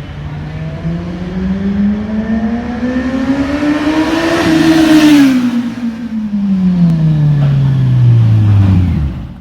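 Kawasaki Z900's inline-four engine through a MIVV MK3 stainless slip-on exhaust, revving as the bike flies by. The pitch climbs to a peak about four seconds in and is loudest just after, then drops away steadily as the bike recedes. The sound cuts off at the end.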